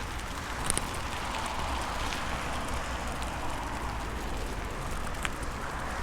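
Bicycle riding over a bumpy road: steady rolling noise, with a couple of sharp rattles, one about a second in and one near the end.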